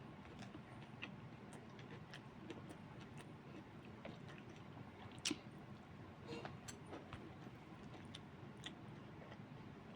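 Quiet chewing of a mouthful of food, with scattered small clicks and one sharper click about five seconds in.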